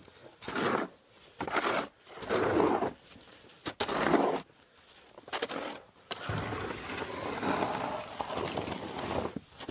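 Large snow shovel scraping and pushing snow in a run of short strokes, then one longer push lasting about three seconds, starting about six seconds in.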